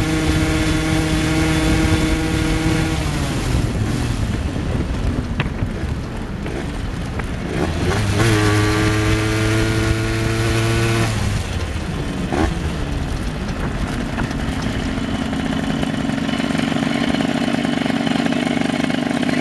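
Derbi Fenix's two-stroke engine with an unported 80cc Metrakit cylinder kit, running hard near top speed at a steady pitch. About three seconds in the note drops away. It pulls again at a steady pitch for a few seconds midway, then settles into a lower, even note near the end.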